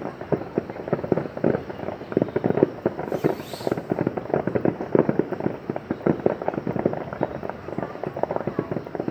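Aerial fireworks exploding in rapid, dense succession, many sharp bangs and pops overlapping without a break. A brief hiss comes in about three seconds in.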